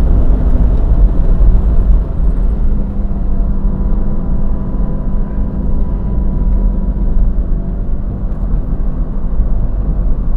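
Mazda Miata's four-cylinder engine running under load at track speed, mixed with heavy wind and road rumble in the open cabin. The overall level drops slightly about two seconds in.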